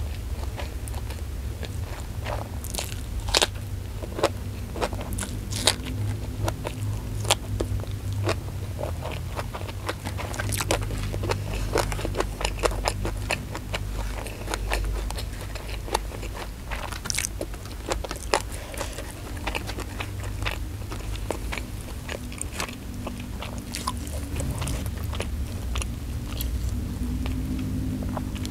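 Close-miked eating: crisp crunching bites and chewing of raw small round eggplant with rice, many sharp crunches scattered throughout, over a steady low hum.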